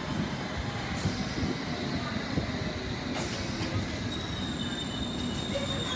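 London Underground S7 Stock District line train running into the platform and passing close by, with a steady rumble and a few sharp clicks. A thin, high squeal sets in over the second half as it slows.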